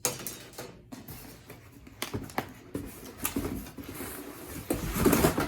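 Packaging rustling and crinkling as the hive's metal base and parts are unpacked, with scattered clicks and light knocks, busiest near the end.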